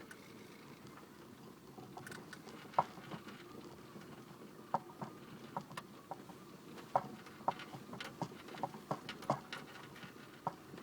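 LADA Kalina steering rack knocking over small road bumps inside the moving car's cabin: irregular light, sharp taps over steady road noise, more frequent after the first few seconds. This is the typical rack knock from a worn inner bushing of the rack.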